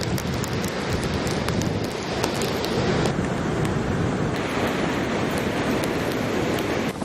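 Hurricane Sandy's wind and rain: a steady, dense rush of wind buffeting the microphone, with scattered small ticks.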